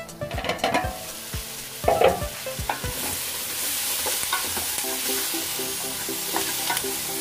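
Food sizzling in a hot pan as it is stir-fried, with a loud clatter of a utensil against the pan about two seconds in; from about three seconds the sizzling settles into a steady hiss.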